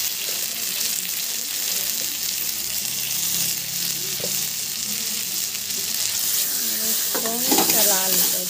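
Onion-tomato masala sizzling steadily in hot oil in a kadhai while being stirred with a spoon, with a brief scraping, squeaky stretch near the end. This is the bhuna stage, frying the masala down with salt just added.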